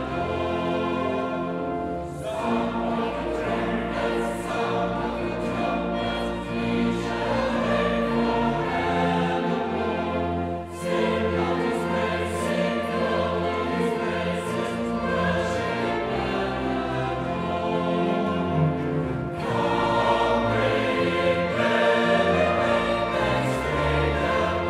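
Mixed choir of women's and men's voices singing a choral anthem, accompanied by strings, with brief breaks between phrases.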